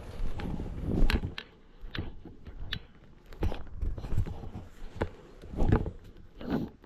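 Footsteps on the forest floor, irregular crunching and rustling steps through leaf litter and twigs, the loudest about a second in and again near six seconds in.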